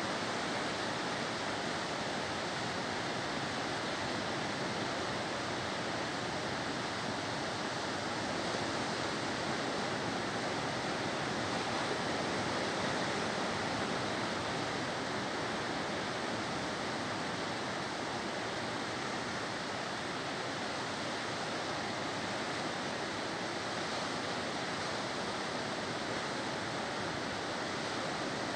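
Ocean surf breaking on the shore: a steady rush of waves with no distinct individual crashes.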